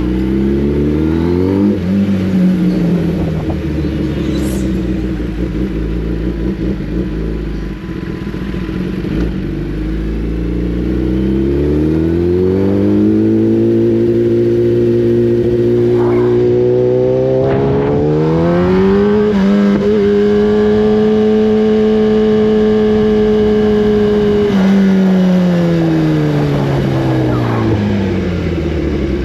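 Sport motorcycle's inline-four engine under way: the revs climb and drop several times, hold a steady pitch for several seconds around the middle, then wind down near the end.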